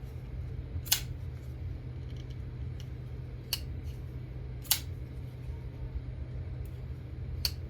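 Liner-lock folding knife being flicked open and shut on its front flipper: four sharp clicks, one to three seconds apart, as the blade snaps out and locks.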